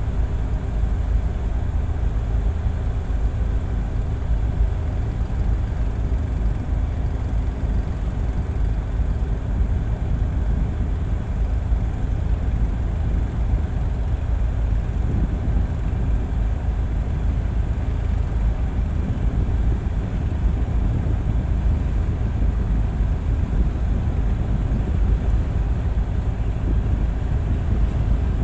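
Tugboat's diesel engines running steadily while underway, a constant low drone with no change in pitch or level.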